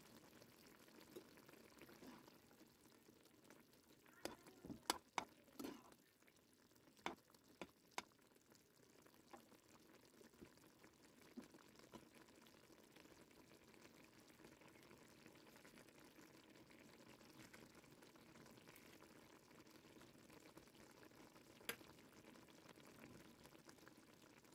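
Sugar syrup boiling faintly around fried bread pieces in a nonstick pan, a steady low bubbling and sizzling, with a cluster of sharp pops about four to eight seconds in and one more near the end.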